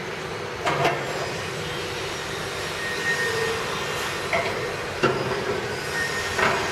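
Powder grinding machine running steadily, with a few sharp knocks and clatters over it.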